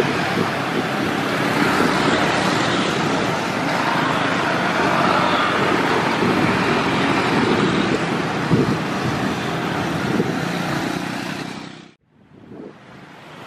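Road traffic passing close by: motorcycle and car engines with a steady wash of traffic noise. It fades out to silence about twelve seconds in.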